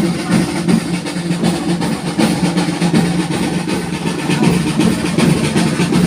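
Festival street drums beating a fast, continuous rhythm of rapid strokes that runs on without a break.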